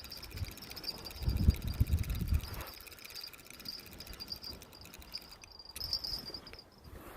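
Night insects chirring steadily in a fast, even pulse; the chirring breaks off briefly near the end and comes back. A few low thumps sound between about one and two and a half seconds in.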